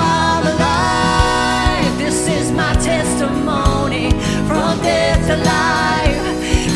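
Church worship band playing a contemporary worship song with a steady drum beat; a singer holds one long sung note in the first two seconds, then the band plays on without words.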